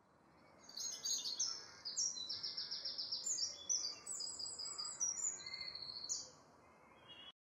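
Birdsong: many short, high chirps and quick trills from small songbirds over a steady outdoor hiss. It fades in at the start and cuts off abruptly near the end.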